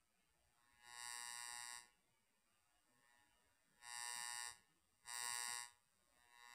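A series of four steady, buzzy tones, each lasting about a second with short gaps between them; the last one is fainter.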